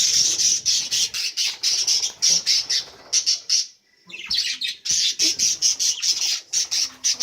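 Budgerigars squawking and chattering close by in rapid, harsh calls, several a second, in two long runs with a short break a little past halfway.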